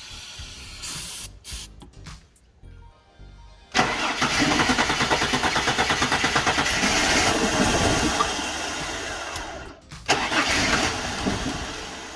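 Ford Falcon engine being cranked after sitting unstarted for about two and a half years, helped by a spray into the intake. A few seconds in it starts with a sudden loud burst and runs rough and pulsing for about six seconds. It then drops away, picks up once more briefly and fades. The tank is near empty.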